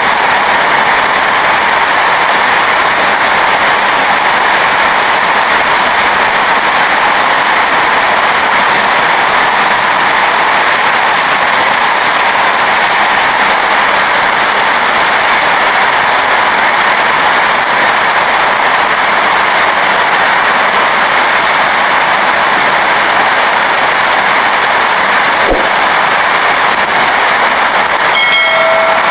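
Rain falling steadily, an even hiss with no let-up. Near the end a brief pitched sound with several tones cuts in.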